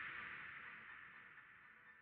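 Near silence: the faint tail of the preceding sound fades away and is gone about halfway through.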